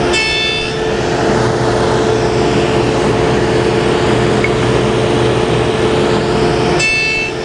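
Table saw with a dado stack running and cutting the back cheeks of tenons on wooden door rails. It runs at a steady pitch, with a higher whine near the start and again near the end.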